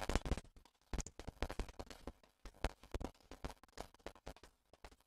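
Computer keyboard typing: a run of separate key clicks at an uneven pace, a few a second.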